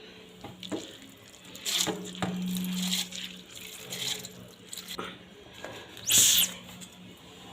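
Soaked rice and its water being scooped into a mixer-grinder jar: wet splashing and dripping with a few light knocks, and a short hissing splash near the end.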